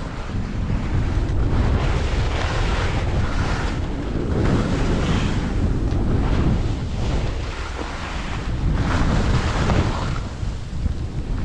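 Wind buffeting the camera microphone in a steady low rumble, with skis hissing and scraping over firm snow in surges that swell and fade every second or two as the skier turns.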